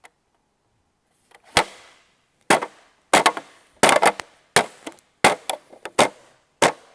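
Hammer blows: a rapid series of sharp, loud knocks starting about a second and a half in, coming roughly every half second, some in quick doubles, each ringing briefly.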